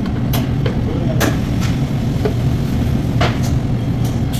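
Steady low rumble of a restaurant's food-prep area, with a handful of sharp, irregular clicks and clinks as a serving spoon scoops from a steel food pan and taps onto a wrap.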